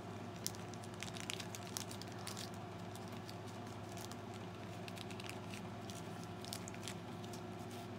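Paper and plastic packaging being handled, with scattered small crinkles and clicks, over a steady low hum.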